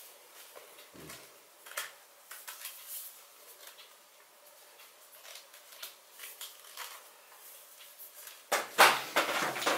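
Plastic clicks, knocks and rubbing from handling the white plastic handle of a Philips Sonicare DiamondClean toothbrush while its bottom cap is pressed into the housing, with a louder cluster of knocks and scraping near the end.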